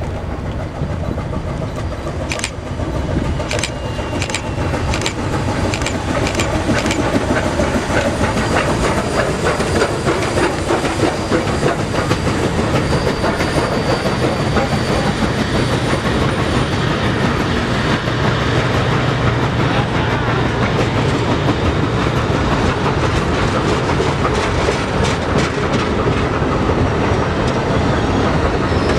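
Steam excursion train hauled by Reading T1 #2102 rolling past, its wheels clicking over rail joints. There is a steady rumble that grows louder over the first several seconds and then holds.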